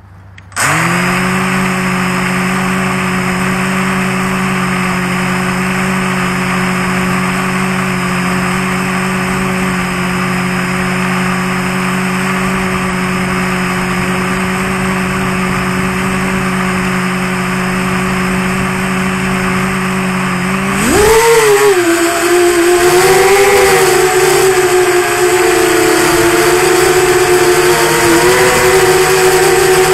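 QAV210 quadcopter's brushless motors and propellers start suddenly and hum steadily at idle while the quad sits on the grass. About two-thirds through, the throttle comes up: the hum gets louder and its pitch jumps and wavers as the quad lifts off and flies. The sound is picked up close by the onboard Mobius camera.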